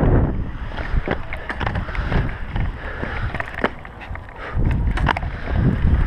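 Skate wheels rolling across a concrete skatepark bowl: a low rumble that swells at the start and again about five seconds in, with scattered sharp clicks and knocks and wind on the microphone.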